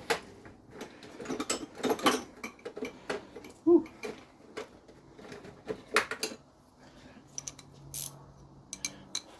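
Irregular metallic clinks and knocks of an 18 mm box wrench being worked on the nuts of a removed motor mount, with one sharper knock a little under four seconds in.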